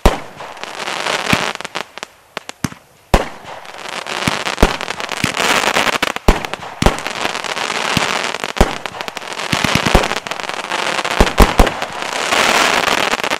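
Thunderbore firework firing a volley of shots: a string of sharp bangs, irregularly spaced, over the dense crackle of the stars bursting. The crackle thickens through the second half and is heaviest near the end.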